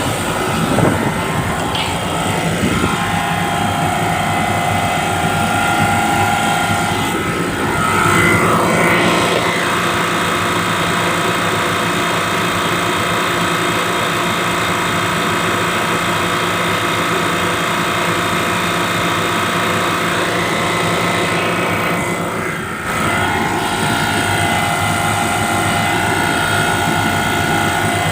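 Newly installed HVAC compressor running just after start-up: a steady mechanical hum with a higher whine on top. The whine changes pitch briefly about 8 seconds in and again about 22 seconds in, with a short dip in level at the second change.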